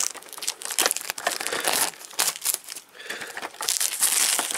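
Clear plastic wrapping on a cardboard model-train box crinkling and crackling as hands handle and pull at it, in a run of irregular crackles that grows louder near the end.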